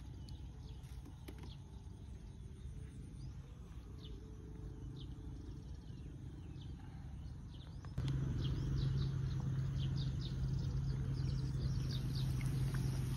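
Small birds chirping repeatedly over outdoor riverside background noise. About two-thirds of the way through, the sound gets louder and a steady low hum sets in.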